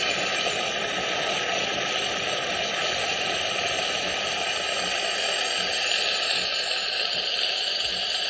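Mr. Coffee espresso and cappuccino machine frothing milk with steam: a steady hiss as frothed milk pours from its spout into the cup.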